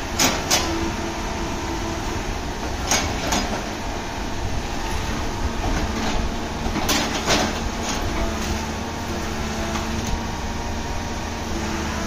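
John Deere 190E excavator running steadily while it digs, with sharp clanks in pairs three times, from the bucket working soil and rocks.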